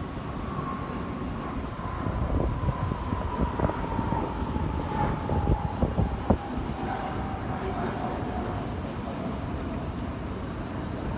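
Jet aircraft engines passing by overhead: a steady whine that falls slowly in pitch as the aircraft goes past, over a low rumble.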